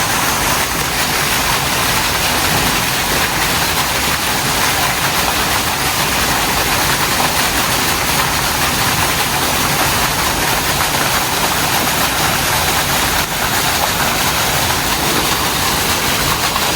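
Rushing water from a waterfall, a steady unbroken rush.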